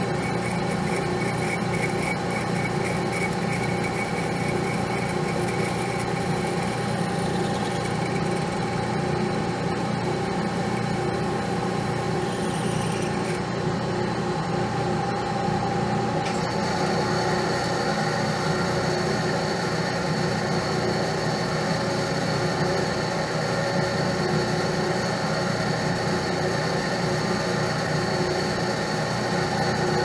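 Metal lathe running steadily with a small part spinning in its chuck. Its sound shifts a little about halfway through, when a higher steady whine joins in.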